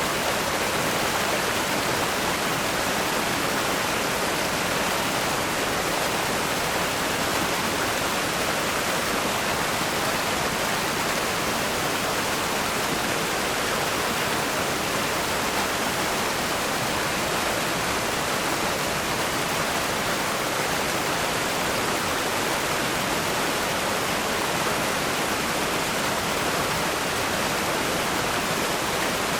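Rushing river rapids: fast water pouring over rocks in a steady, even roar.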